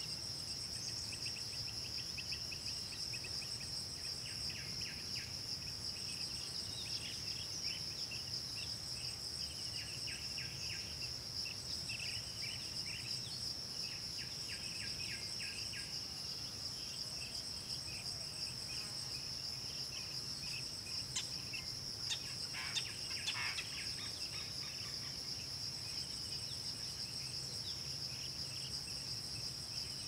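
Steady, high-pitched insect drone with a fainter pulsing insect call above it. Many short bird chirps run throughout, with a burst of louder calls about three quarters of the way through.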